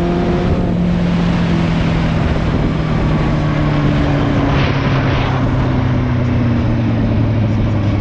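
Motorcycle engine running while riding, its pitch sinking slowly as the bike slows, under a steady rushing noise, with two short hisses about halfway through. The bike has an exhaust leak.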